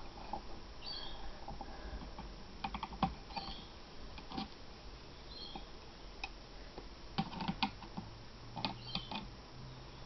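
Small clicks and taps of a screwdriver working screws out of a netbook's plastic deck, in scattered little clusters, with a few faint short high squeaks now and then.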